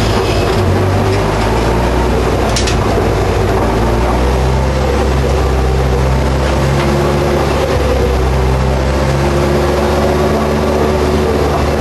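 Race car's engine heard from inside the stripped, roll-caged cabin, running at fairly steady revs whose pitch steps a few times, with a couple of sharp clicks.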